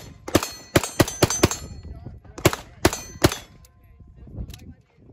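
Walther PDP compact semi-automatic pistol firing about eight shots: a quick string of five, then a pause of about a second and three more at a slightly slower pace.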